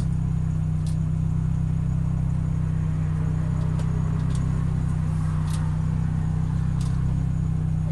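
Car engine idling steadily, an even low rumble heard from inside the cabin, with a few faint ticks.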